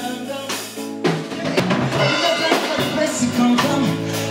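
Live band playing on drum kit, electric bass and keyboard. A chord is held for about a second, then a drum hit brings the full band back in.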